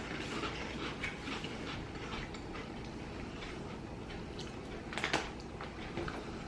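Faint crunching of crisp puffed potato snacks being chewed, a scatter of small crackles, with a couple of sharper crunches about five seconds in.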